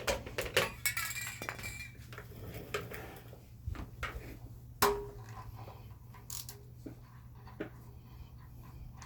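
Hand tools and metal engine parts clinking and tapping in a string of separate sharp clicks, the loudest about five seconds in with a brief ring, over a steady low hum.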